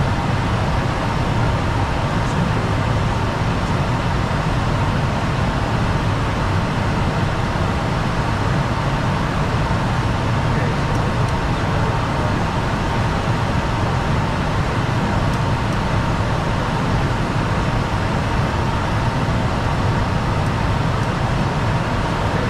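Gulfstream G650 business jet in flight: a steady, even rushing of engine and airflow noise with a faint constant whine.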